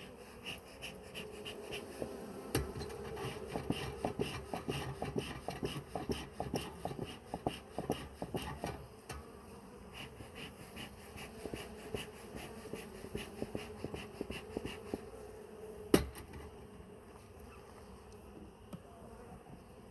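Honeybees buzzing around an opened hive, a steady hum. Over it, a run of rapid ticks and knocks through the first half and one sharp knock about three-quarters of the way through.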